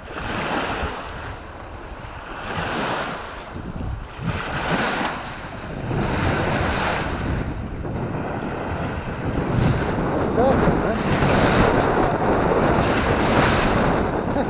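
Choppy, wind-driven waves breaking and washing up onto a gravel shore, surging every second or two and louder in the second half, with wind buffeting the microphone.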